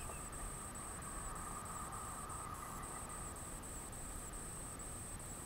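Insects, such as crickets, chirping in a steady high chorus that pulses about two to three times a second, with a steady lower tone beneath.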